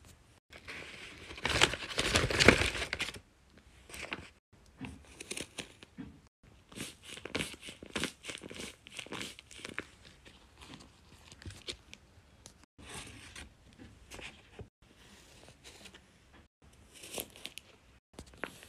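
Homemade paper blind bags, some covered in tape, being handled and torn open: paper crinkling and tearing in irregular bursts, loudest about one and a half to three seconds in.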